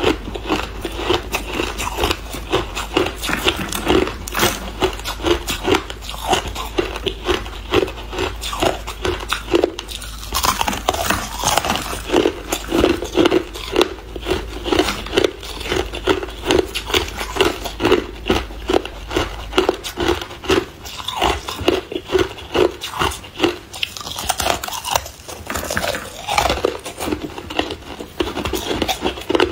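Hard clear ice being bitten and crunched between the teeth, close to the microphone: a rapid, continuous run of crisp crunches with no break.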